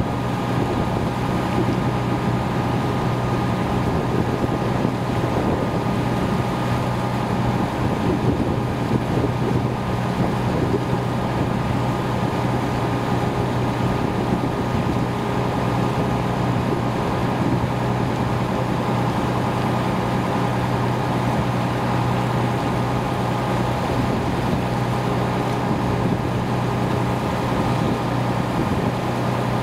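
Boat engine running at a steady, unchanging speed: a constant low hum with a steady tone, over wind and water noise.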